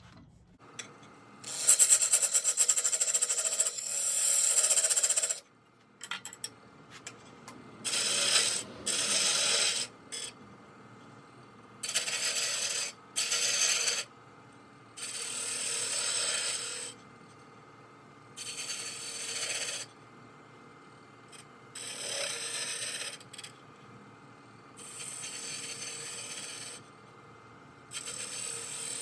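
Repeated passes of a turning tool against a spinning tigerwood shift-knob blank on a wood lathe: about a dozen hissing scrapes of one to three seconds each, with short quieter gaps between them and the lathe humming faintly underneath.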